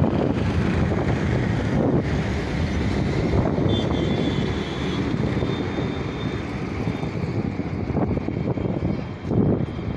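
Wind buffeting the microphone over the steady noise of road traffic passing on the highway.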